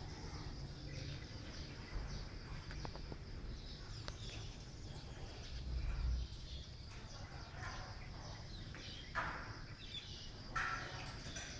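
Birds calling over a steady low background rumble, with short high chirps and two short harsh calls late on. A brief swell of low rumble comes a little past halfway.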